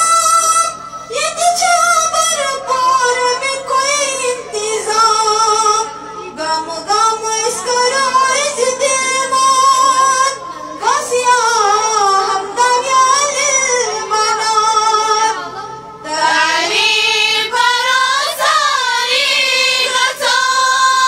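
A female voice singing a slow melody in long phrases, with held notes that waver in pitch.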